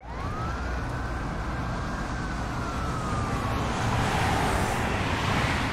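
City bus approaching and pulling up to a stop: a steady low rumble with a drivetrain whine that rises in pitch, then slowly falls as the bus slows, and a swell of noise near the end as it draws close.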